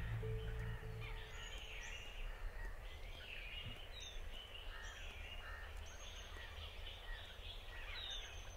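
Outdoor garden ambience with birds calling: short, high calls repeating every second or two over a low, even background noise. A held music tone fades out about a second in.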